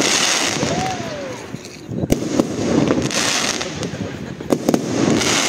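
Fireworks display: aerial shells bursting, with three sharp bangs (one about two seconds in, two close together near the end) between hazy, crackling showers.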